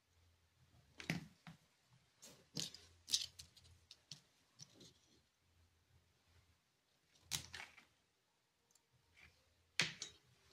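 Faint scattered clicks and scrapes from fingers handling a small hand-wired circuit and its stiff leads, with about five sharper ticks among them.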